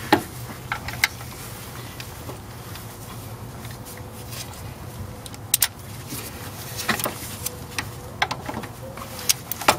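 Metal clicks and clinks of a socket ratchet on an extension, working the bolts of a power steering pump bracket loose. There are scattered single clicks, with a quick cluster near the end, over a steady low hum.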